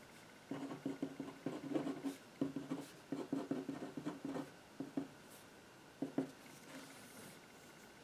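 Marker pen writing on paper in quick, uneven strokes, stopping about six seconds in.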